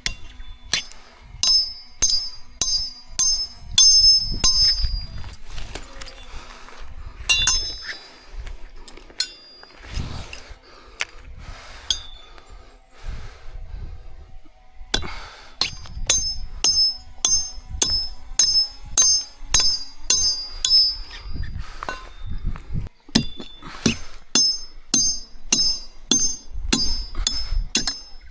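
Repeated sharp strikes, each with a bright metallic ring, about two a second. They thin out for several seconds midway and pick up again about fifteen seconds in.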